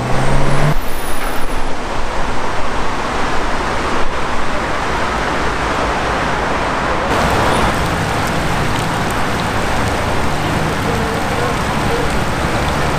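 A Porsche 911 sports car's engine accelerating past, loud and uneven for the first couple of seconds. Steady city traffic noise follows.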